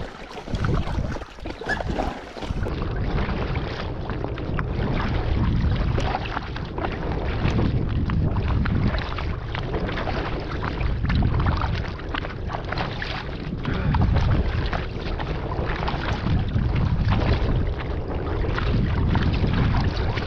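Kayak paddle blades dipping into and splashing lake water stroke after stroke beside an inflatable kayak, with wind rumbling on the action camera's microphone throughout.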